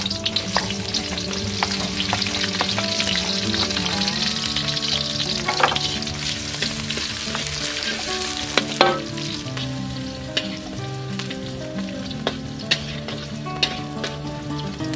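Sliced garlic, shallots, chili and tomato sizzling in hot oil in a metal wok, with a metal spatula now and then scraping and knocking against the wok as they are stirred. This is the aromatics being sautéed until fragrant, before the water spinach goes in.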